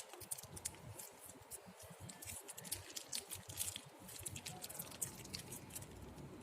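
Faint squishing and light ticks of white PVA glue (Fox brand) being put into a slime container.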